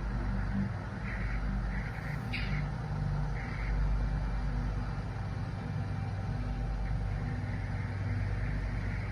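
Steady low hum on a room recording, with a few soft, breathy puffs of noise in the first four seconds, which the ghost hunters take for someone heavy breathing.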